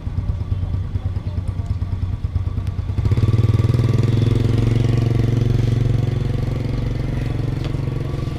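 Small underbone motorcycle engine running at low speed as the bike rides slowly past close by. It gets louder about three seconds in, then eases off as the bike moves away.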